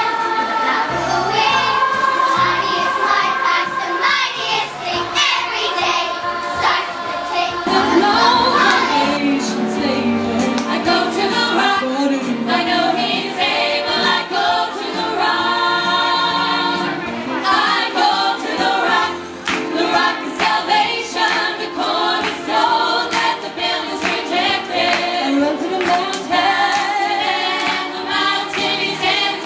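Choir singing with music, women's voices to the fore, one of them amplified through a microphone.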